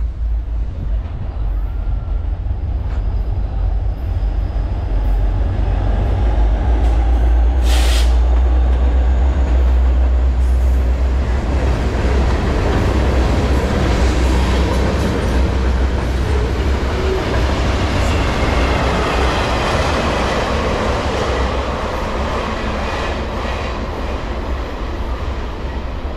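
A local freight train passing close by: a steady low diesel locomotive rumble with rolling wheel-on-rail noise, loudest about eight to twelve seconds in. A short sharp metallic sound comes about eight seconds in.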